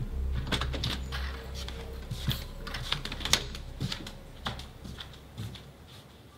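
A run of irregular clicks and taps that grows fainter, over a low music drone that fades out.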